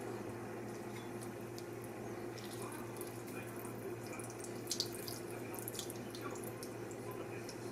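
Grated ginger squeezed by hand, its juice dripping into a steel bowl of marinating chicken, making a few faint drips and squelches over a steady low hum.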